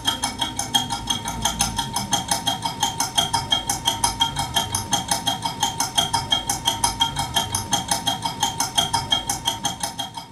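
Alarm bell ringing: a small metal bell struck rapidly and evenly by its hammer, about seven or eight strikes a second.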